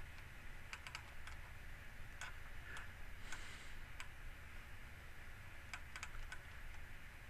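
Faint, scattered clicks of a computer mouse and keyboard, a few in quick clusters, over a steady low hum.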